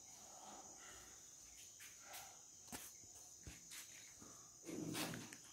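Faint handling of cloth track pants: soft rustles and light knocks, with a brief louder shuffle near the end, over a steady faint high-pitched tone.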